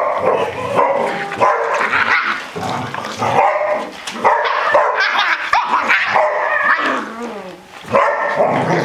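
A litter of seven-week-old Barbet puppies yipping and barking almost without pause in rough play.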